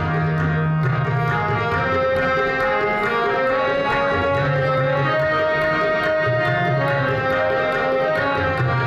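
Chhabra and Nagi harmoniums and a tabla pair playing Sikh kirtan: held harmonium reed tones carrying a stepping melody over steady tabla strokes.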